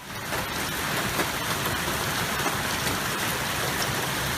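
Hailstorm: hail and heavy rain falling hard, a steady dense hiss with fine patter of many small impacts.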